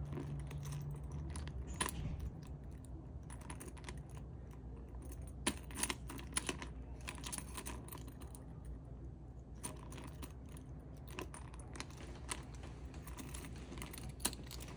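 Small irregular clicks and taps of gold-tone metal hardware as a handbag's chain top handle is clipped onto its clasp rings, with a few sharper clicks midway.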